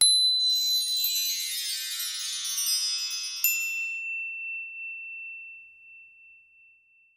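Logo sting: a shimmering cascade of high chime-like tones. About three and a half seconds in comes a single bright ding, which rings out and slowly fades away.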